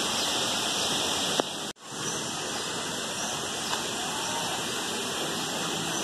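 Steady outdoor hiss, broken by a sudden drop-out just under two seconds in, then carrying on unchanged.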